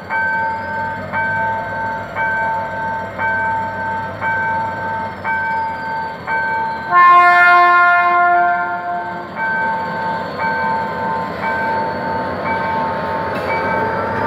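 Level-crossing warning bell ringing in steady repeated strokes, about one a second. About seven seconds in, the GM GT22CW-2 diesel locomotive sounds its horn once for about two seconds, the loudest sound. Near the end the locomotive and its coaches roll past close by.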